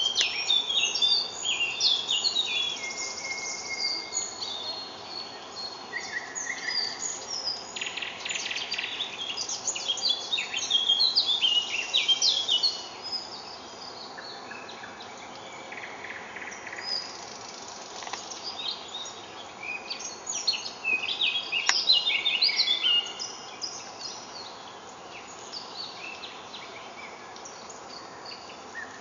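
Morning chorus of several songbirds singing at once: many overlapping chirps and short trilled phrases. The singing is busiest in the first half and again a little past the middle, thinning out between.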